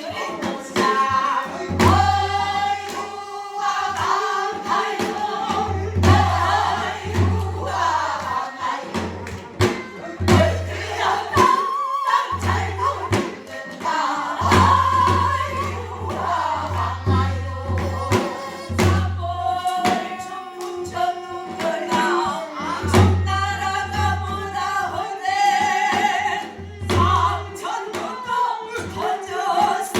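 Korean Namdo folk singing, with a strong, wavering vibrato on held notes, over regular drum strikes.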